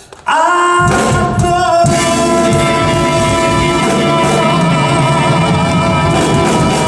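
Live pop band and singer coming in loudly about a quarter second in and holding a long final chord, a sustained vocal note with vibrato over it.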